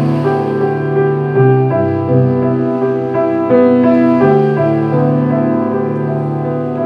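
Slow piano music, held notes and chords ringing on and changing every second or so.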